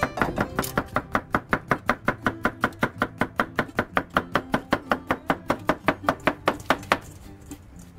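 Kitchen knife slicing a cucumber on a wooden cutting board: quick, even chops, about six a second, that stop near the end.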